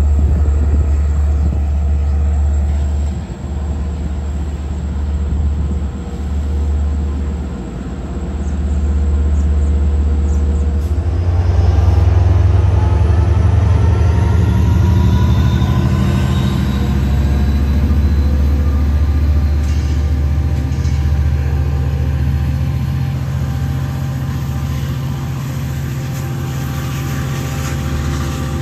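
LIRR DM30AC diesel locomotive with its engine running in a steady low drone, then powering up to pull the train out. About eleven seconds in, an electric whine from the traction motors rises in pitch as the train accelerates, over the engine's drone.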